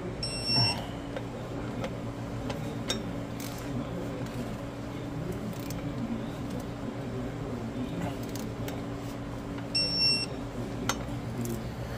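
Flywheel bolts being tightened with a ratchet and a Snap-on torque wrench: scattered sharp metal clicks, and two short beeps about a second in and again near the end, over a steady low hum.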